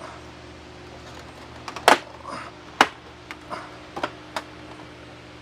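Sharp clicks and knocks of parts being handled while the mini split is put back together, about five in all, the loudest about two seconds in, over a steady low hum.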